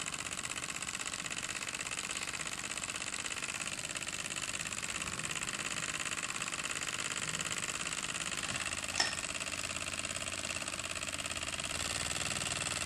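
Microcosm M88 mini walking-beam steam engine running fast, a steady rapid clatter of its small brass piston, valve, beam and flywheel. A single sharp click about nine seconds in, and the running gets slightly louder near the end.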